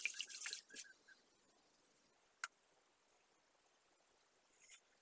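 A silicone spatula stirring liquid batter in a stainless steel bowl, soft scraping and sloshing for under a second, then near silence with one faint click about two and a half seconds in.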